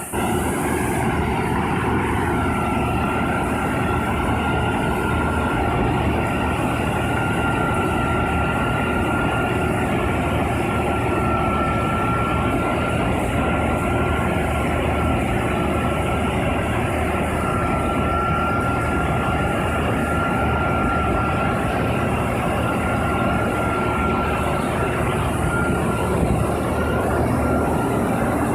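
4YZ self-propelled corn harvester running steadily: a continuous machine drone with one unchanging high whine over it.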